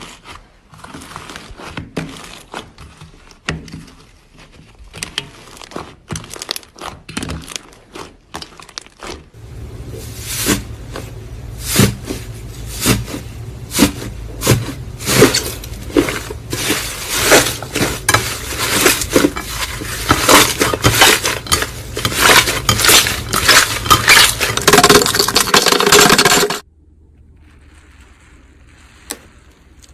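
Slime being squeezed and worked by hand, giving rapid crisp clicks and crackles. About nine seconds in they become louder and denser over a low hum, then cut off suddenly near the end.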